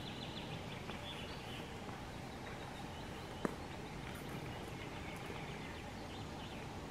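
Woodland ambience: a steady background rush with faint bird chirps, and a single sharp click about three and a half seconds in.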